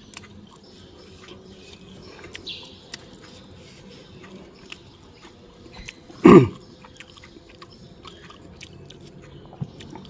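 Close-miked chewing and mouth sounds of someone eating a meal, with small clicks and smacks throughout. About six seconds in there is a single brief, loud pitched throat sound.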